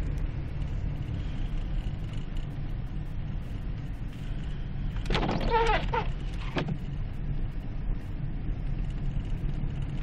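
Inside a car driving through deep snow: the engine runs steadily under a low tyre-and-road rumble. About five seconds in, the windshield wipers sweep once with a short squeak across the glass, followed by a single knock.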